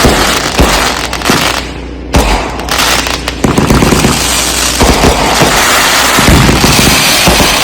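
Consumer aerial fireworks going off in a rapid barrage: many booms and bangs over continuous crackling, easing briefly about two seconds in and then building again.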